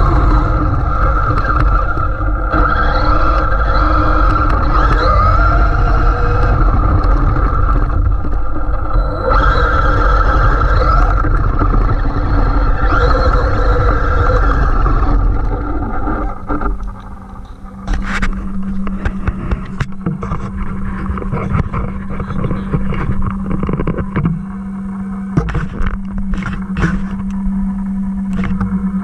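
Traxxas MAXX RC monster truck being driven: the electric motor whines, rising and falling in pitch with the throttle, over a heavy rumble from the tyres and drivetrain. About 17 seconds in the whine drops away, leaving a steady low hum with scattered knocks and clicks.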